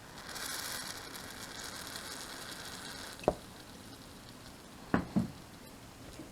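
An aerosol spray can hissing for about three seconds, then a sharp knock and, about two seconds later, two quick knocks.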